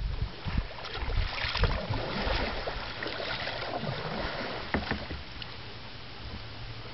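Paddle strokes in calm river water: scattered splashes and drips from a paddle, with wind rumbling on the microphone.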